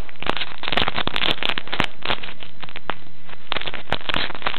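Dense, irregular crackling and rustling right at the microphone: close handling noise as hands move around the camera.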